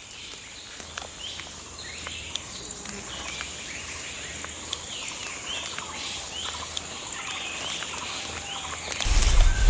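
Birds calling, a short high sweeping call repeated every half second to a second, over a faint low hum. About nine seconds in, a loud low rumble comes in.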